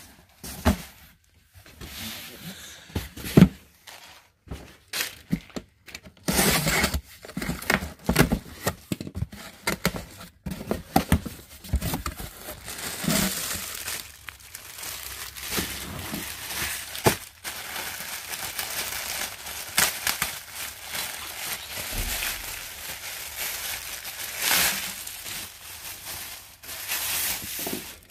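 Thin plastic poly bags crinkling and rustling as packaged items are handled and unwrapped, mixed with irregular knocks and scrapes of cardboard boxes being moved and opened.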